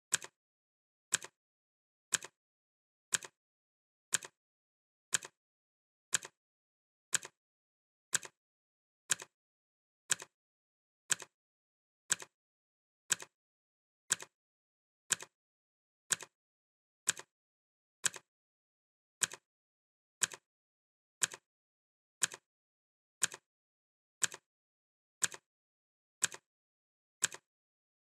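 Clock ticking sound effect: one sharp tick every second, evenly spaced, with dead silence between ticks.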